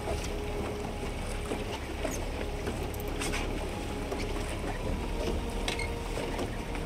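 Boat's outboard motor running steadily, a low rumble with a faint engine tone, mixed with wind and water against the hull. A few short clicks stand out, one about three seconds in and one near the end.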